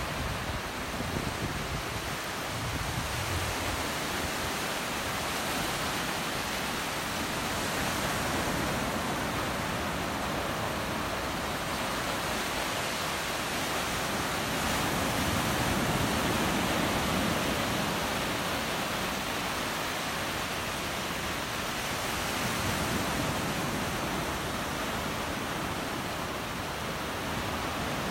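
Gulf of Mexico surf washing onto the beach: a steady rush of waves that swells and eases every several seconds.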